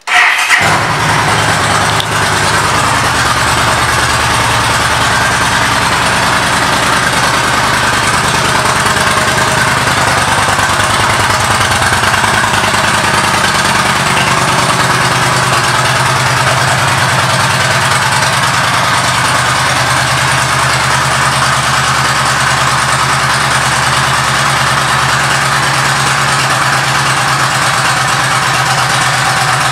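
2012 Yamaha V Star 1300's V-twin engine, breathing through an aftermarket Cobra exhaust, comes in abruptly at the start and then runs at a steady idle.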